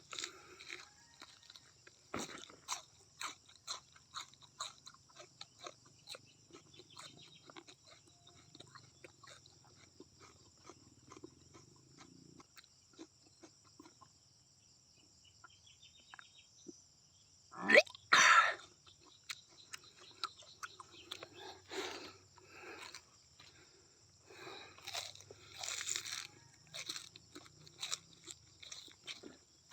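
Close-up crunching and chewing of raw banana stem, many short crisp crunches with a pause a little before halfway. One brief, much louder sound with a rising pitch comes a little past halfway.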